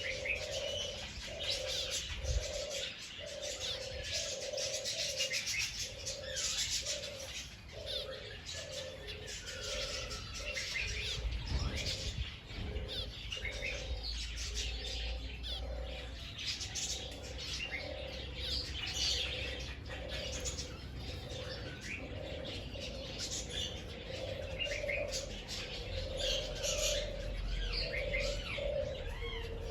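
Doves cooing in a long repeating series of low notes, with many small birds chirping over them.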